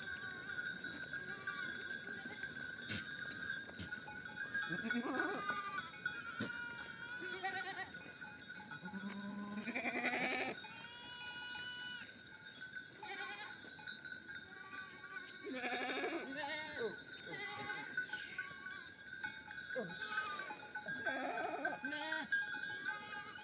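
Herd of goats bleating, many short calls one after another from different animals, over a steady ringing of herd bells.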